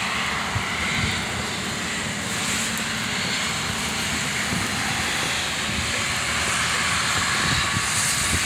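Heavy rain pouring steadily with strong wind, the gusts buffeting the microphone in an irregular low rumble.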